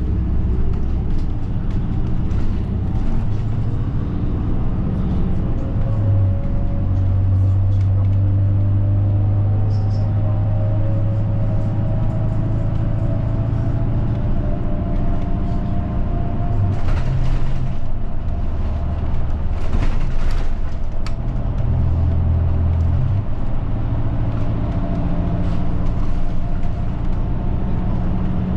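A route bus heard from inside its cabin while driving, the engine's low hum steady underneath and a drive whine slowly rising and falling in pitch as the bus speeds up and slows. Two brief rushing noises come a little past the middle.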